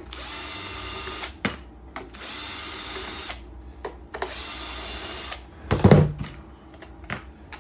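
Cordless power driver spinning out the screws holding the blower's starter assembly: three runs of a steady motor whine, about a second each with short pauses between. A loud knock follows near the end.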